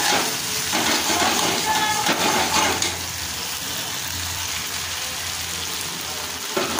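Ground spice paste sizzling in hot mustard oil in a metal kadai, stirred and scraped with a spatula: several scraping strokes in the first few seconds, then a quieter, steady sizzle. The masala is cooked down, its raw smell gone and the oil separating.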